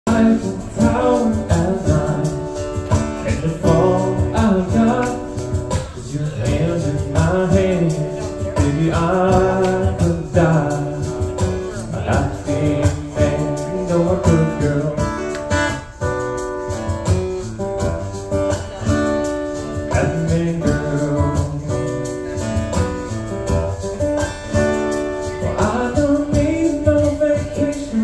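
Live solo performance: a man sings while strumming an acoustic guitar in a steady rhythm.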